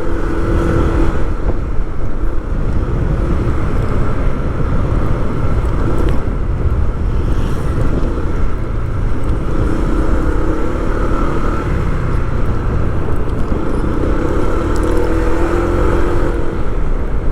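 A moving vehicle's engine and road noise: a steady heavy low rumble with a faint engine hum wavering in pitch.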